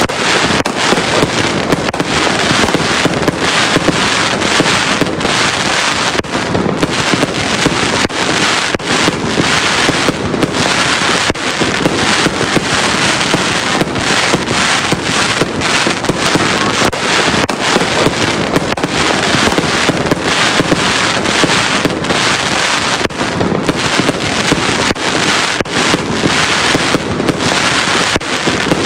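Fireworks going off in a dense, continuous barrage: rapid overlapping bangs and crackling that never pause.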